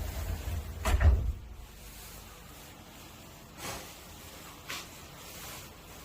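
A sliding door runs along its track with a low rumble and shuts with a heavy thud about a second in, followed by two light knocks.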